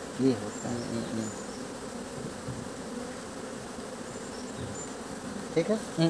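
Honey bees buzzing steadily around an open hive box.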